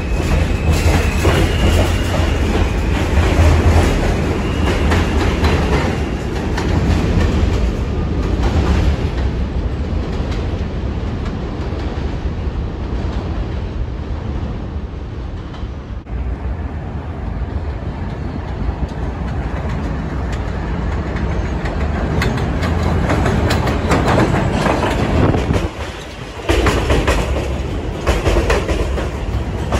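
R160 New York City subway trains running through an elevated station: a steady rumble and rattle of the cars on the track, and near the end a train passes close by with its wheels clacking over the rail joints.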